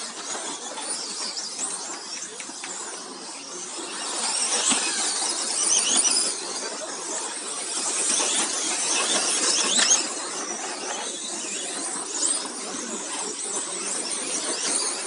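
Several radio-controlled model racing trucks' electric motors whining high, the pitch sliding up and down over and over as they accelerate and brake, louder as the pack passes.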